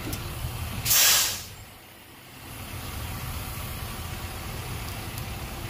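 A short, loud hiss of compressed air about a second in, lasting about half a second, from the shop-air line and compression-tester hose fitted into the spark plug hole to hold the valves shut. A steady low hum runs underneath.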